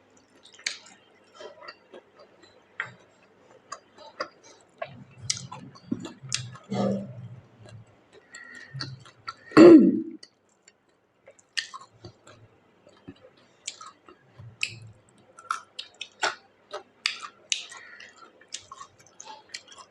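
Close-miked chewing and mouth smacks of a person eating pork curry with rice: many short wet clicks throughout, with one louder, lower sound about halfway through.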